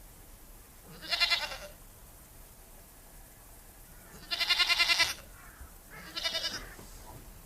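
A goat bleating three times: a short call about a second in, a longer wavering bleat around four seconds in, and a shorter one soon after.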